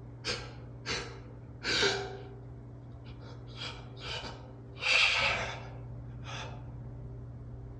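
A man's short, sharp gasping breaths, about seven of them, the loudest and longest about five seconds in: the catching inhales of a sneeze building up and being held back.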